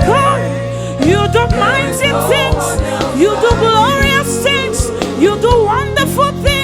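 Live gospel worship music: a band with bass and drums playing steadily while a vocalist sings wordless, sliding runs over it.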